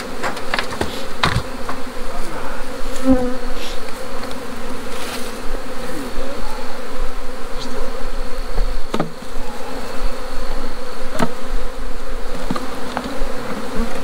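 A cloud of honeybees buzzing loudly around a disturbed hive: a steady hum, with single bees whining past the microphone, rising and falling in pitch. A few sharp knocks come as the wooden hive boxes and lid are handled.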